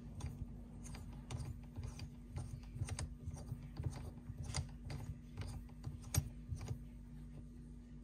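Faint, irregular small metal clicks and ticks as the threaded shift stick is turned by hand and screwed down into an MGW short-throw shifter, over a low steady hum.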